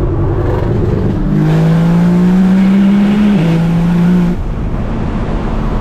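Tuned Nissan GT-R R35's twin-turbo V6 accelerating hard in a tunnel, heard from inside the cabin. The engine note climbs, drops once about three and a half seconds in, climbs again, then falls away when the throttle is lifted a little after four seconds.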